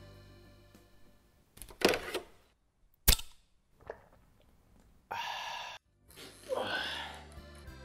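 A man taking a swig from a glass beer bottle. There is a short hiss about two seconds in and a loud, sharp click just after three seconds. A brief sound then cuts off abruptly, and a sound rising in pitch follows near the end.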